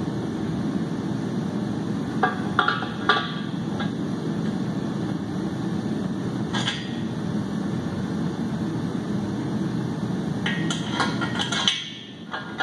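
Bare 7.3 Powerstroke V8 engine block being turned over on a steel engine stand: scattered metal clanks and knocks, a few early on, one alone midway and a quick cluster near the end. A steady low hum runs underneath and briefly drops away near the end.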